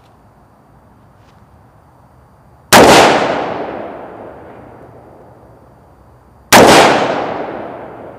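Two single shots from an AR-15 rifle firing tracer rounds, about four seconds apart, each followed by a long echo that fades over a couple of seconds.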